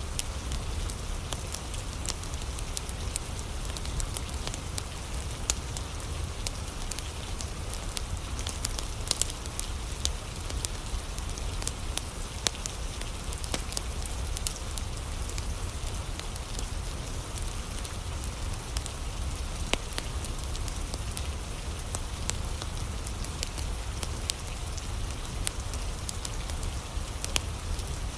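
Steady rain falling, mixed with a wood fire burning in a fireplace, with many scattered sharp crackles and pops over a low rumble.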